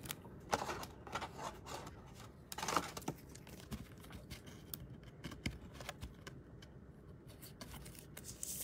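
A trading card slid into a clear rigid plastic top loader by hand: faint scattered scrapes and small plastic clicks.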